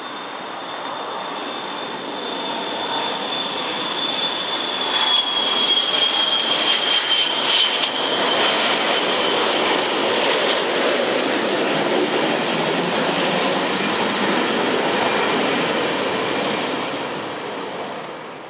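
Boeing 727-200 freighter's three JT8D turbofan engines passing low overhead on final approach: loud jet noise that builds over the first few seconds, with a high whine sliding down in pitch as the aircraft passes. The sound stays loud and starts to fade near the end.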